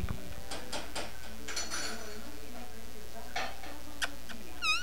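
Dogs eating from a dish: scattered light clicks and clinks, then a short, wavering high-pitched whine from a dog near the end.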